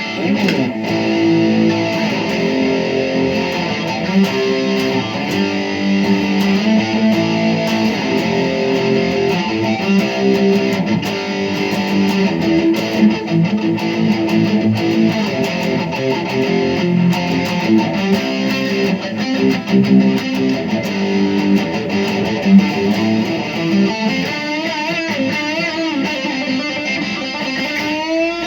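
Ibanez AS53 semi-hollow electric guitar played through a distortion tone, held chords and single notes ringing on without a break.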